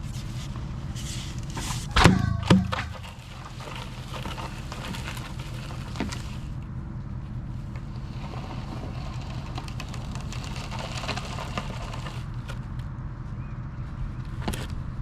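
Engine running steadily at low revs, with two loud clanks about two seconds in, half a second apart, and light clicks and knocks.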